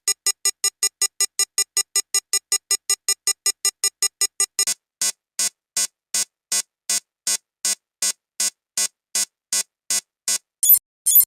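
Electronic emergency alarm beeping. A fast run of short beeps, about five a second, switches about four and a half seconds in to a slower beep of about three a second with a lower tone in it. Near the end a louder, higher-pitched beeping takes over.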